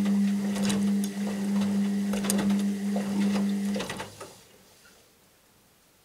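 Washing machine motor turning the drum: a steady hum with clattering and clicks over it, stopping a little under four seconds in.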